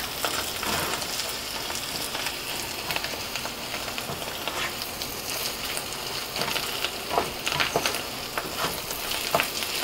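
Mashed rui fish roe frying in oil in a nonstick pan, a steady crackling sizzle, with short scrapes and taps of a wooden spatula stirring it, more of them near the end.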